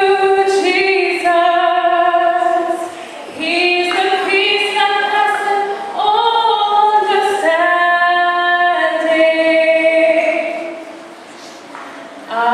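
A woman singing a slow solo song in long held, wavering notes, with short breaks for breath about three seconds in and near the end.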